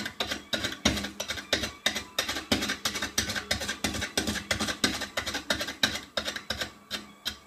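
Wood-turning gouge cutting a spinning maple burl on a lathe: rapid, uneven knocks and scrapes, about four a second, over a steady lathe hum.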